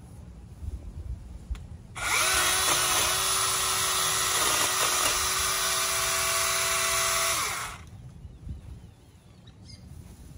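Cordless battery-powered mini chainsaw running for about six seconds, starting about two seconds in and stopping well before the end. Its motor pitch dips briefly several times as the chain bites into rose bush branches.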